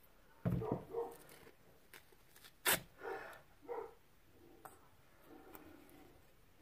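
A dog barking several times in short calls, with duct tape being pulled off the roll and torn: one sharp rip about halfway through is the loudest sound.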